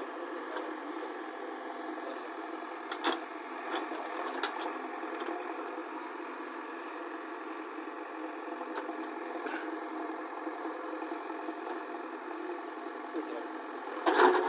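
Diesel engine of a JCB 3DX backhoe loader running steadily, with a few short knocks and a louder clatter near the end.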